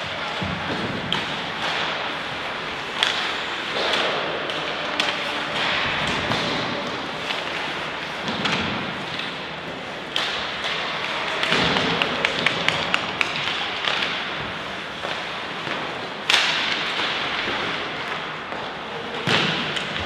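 Sounds of play in a team match: scattered thuds and sharp knocks over a steady background din, with a quick rattle of taps about twelve seconds in and heavier hits near the end.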